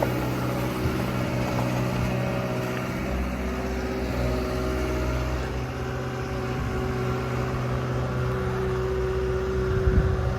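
A vehicle engine running steadily, with a constant low hum and a steady tone above it.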